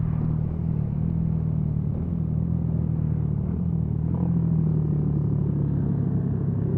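Motorcycle engine running at a steady cruise, with road and wind rumble.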